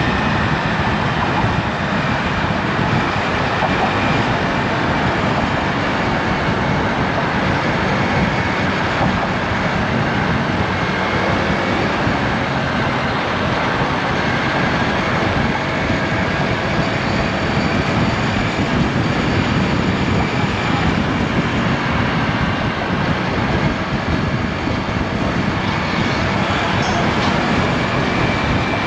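Steady rushing wind and road noise while riding a Honda Navi scooter, with its small single-cylinder engine running under it.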